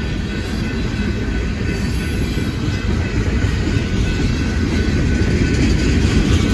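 Freight train cars rolling past close by: a steady rumble of steel wheels on the rails, growing slowly louder.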